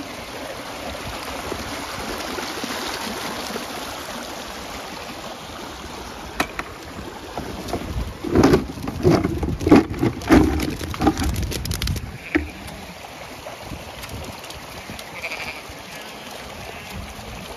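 Floodwater rushing along a concrete channel, with Zwartbles sheep bleating. A run of loud knocks and thumps comes around the middle.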